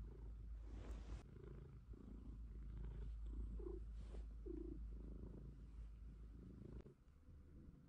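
Long-haired cat purring steadily while being stroked; the purr stops about seven seconds in.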